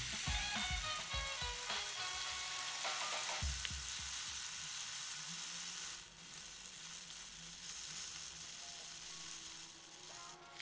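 Wheat kernels pouring from a paper bag into a plastic bowl: a steady dry hiss of grain that weakens about six seconds in.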